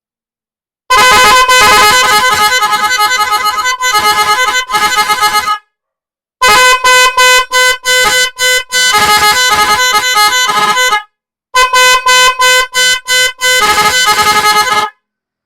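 A pair of electric vehicle horns driven by a four-tone horn relay, sounding in three bursts of a few seconds each with sudden silences between. The horns hold one steady pitch, chopped into fast on-off pulses by the relay's warble patterns.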